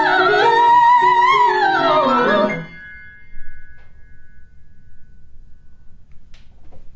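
Soprano voices with violin and cello in a small chamber ensemble, sustaining and gliding through the final chord of an art-song opera piece, cut off together about two and a half seconds in. A single high note rings on and fades away, leaving quiet room noise with a few faint clicks.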